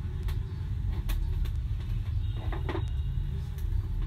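Light clicks and knocks of multimeter test probes and the meter being handled on a tabletop, with a short cluster of rattles about two and a half seconds in, over a steady low background rumble.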